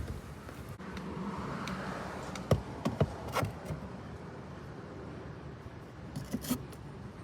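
Belongings being handled and set down: rubbing and rustling, with a few sharp knocks and clicks about two and a half to three and a half seconds in and a few more near the end.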